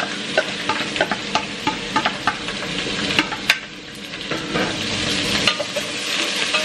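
Chopped onion, garlic, ginger and bell peppers sizzling in hot olive oil in a pot while a wooden spoon stirs them, with repeated knocks of the spoon against the pot, most of them in the first half.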